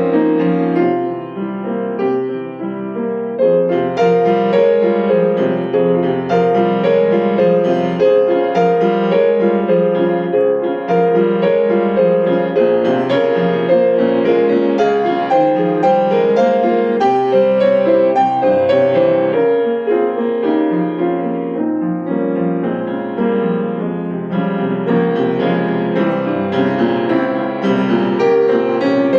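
Solo piano playing a continuous run of notes, briefly softer about two seconds in.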